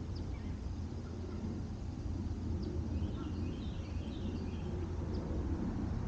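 Countryside ambience: a steady low rumble with short, scattered bird chirps, and a brief flurry of chirps about three seconds in.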